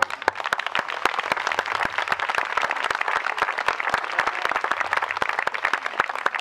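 A crowd applauding with many hands clapping. It starts suddenly and keeps up evenly throughout.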